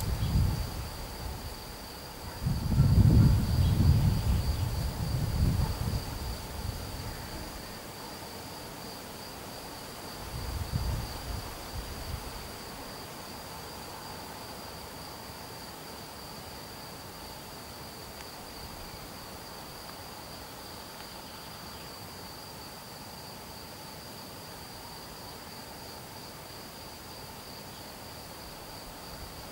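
A cricket trilling in one steady, high-pitched note with a faint pulse. Low rumbling noise comes in twice, in the first few seconds and again about ten seconds in.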